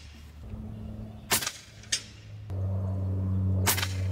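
Sharp cracks from shooting a .22 RAW HM1000X PCP air rifle: two about half a second apart, then two more close together near the end. A steady low hum comes in a little past halfway.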